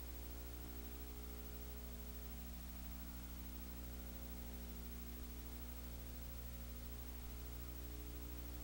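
Steady electrical hum with a row of evenly spaced overtones under a constant hiss. No sound from the game itself is heard.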